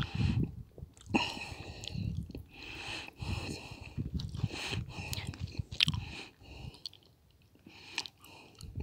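Wind buffeting the microphone in irregular gusts, with scattered crunching and crackling; it drops to a lull about seven seconds in.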